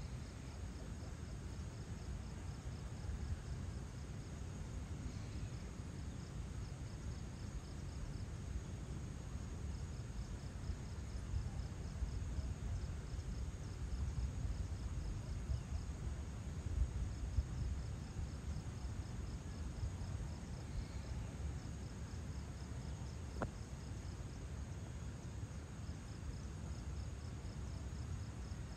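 Insects chirping in trains of rapid, even pulses that start and stop every few seconds, over a steady low rumble of outdoor ambience. A single faint click comes about three quarters of the way through.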